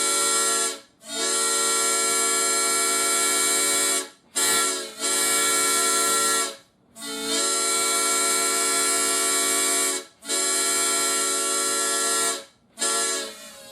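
Homemade plastic drinking-straw replica of a Nathan P7X seven-chime train horn sounding its steady A 6th chord in a series of blasts. Most blasts last two to three seconds, with two brief toots among them, each ending and starting again after short breaks.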